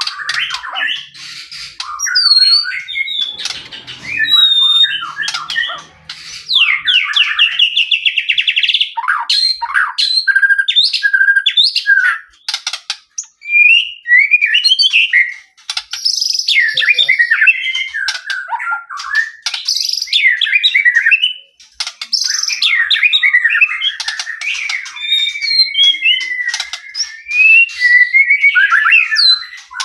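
White-rumped shama (murai batu) in full, continuous song: a fast run of varied whistles, chirps and clicks, with a rapid rattling trill about a quarter of the way in and a few brief pauses.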